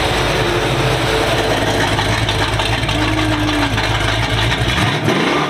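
Camaro Z28 V8 rumbling at idle through an X-pipe and zoomie exhaust. Near the end the deep low rumble drops out and the engine note swings up and falls away.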